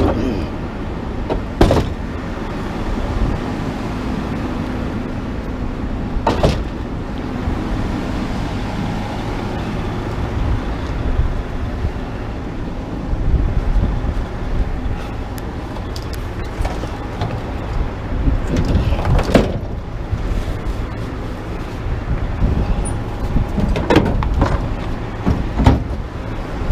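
Truck driving: a steady engine hum and road noise, with several sharp knocks and rattles along the way.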